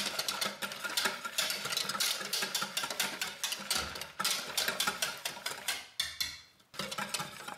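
Wire balloon whisk beating a liquid marinade in a plastic mixing bowl: fast, even strokes with the wires clicking against the bowl. The whisking stops about six seconds in, followed by a few last strokes.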